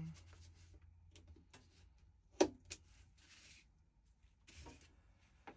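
Faint handling noises of a utility knife cutting the end of a pyrotechnic time fuse at a diagonal: light rustles and ticks, with a sharp click a little over two seconds in and a smaller one just after.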